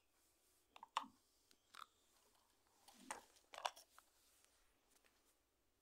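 Quiet plastic handling noises: a handful of short clicks and scrapes, the loudest about one second in and again three to four seconds in, as the battery cover of a toy remote-control car's controller is opened.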